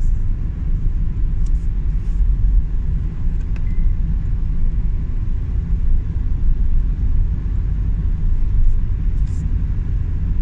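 Steady low rumble of a moving car's road and engine noise heard from inside the car, with a few faint ticks.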